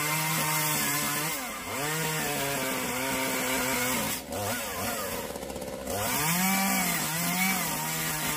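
Small chainsaw carving into the trunk of a plum tree, its motor pitch repeatedly rising and sagging as the chain bites into the wood and is eased off. About four seconds in it drops lower and quieter for over a second, then picks up again.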